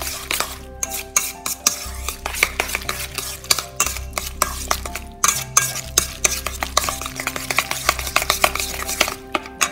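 Chopsticks stirring seasoned minced pork and chopped celery wonton filling in a stainless steel bowl. They clack quickly and irregularly against the metal bowl, with the wet squelch of the meat mixture.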